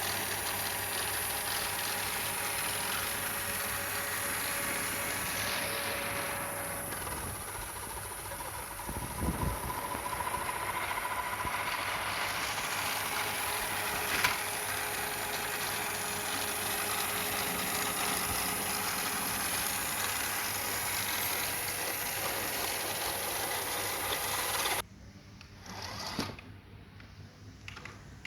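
Small electric motor of a toy remote-control car running steadily with a hissing whir, with a thump about nine seconds in; it cuts off suddenly about 25 seconds in.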